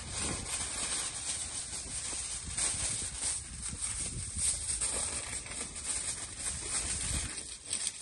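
Aluminium foil crinkling and rustling as it is handled and pressed flat over a metal baking tray, a dense run of small irregular crackles and a bright hiss.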